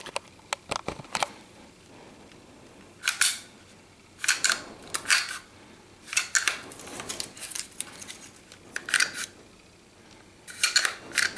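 Walther PPQ M2 pistol's steel slide worked by hand in short press checks, drawn part way back and let go. The result is a run of sharp metallic clicks and brief sliding rasps: a few quick ticks at first, then several louder clicks spread through, with one longer rasp midway.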